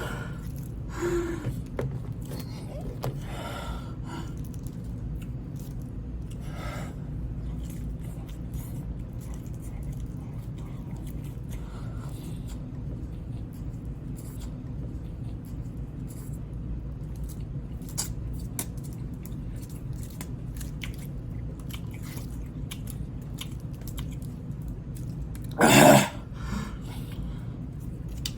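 Close-up chewing of food, with faint wet mouth clicks over a steady low hum. Near the end comes a loud, short cough.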